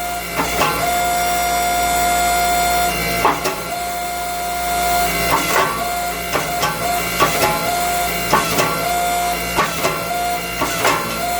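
A steady machine hum with a fixed whine runs throughout, and over it about fifteen sharp metal knocks and clanks land at uneven intervals, some ringing briefly.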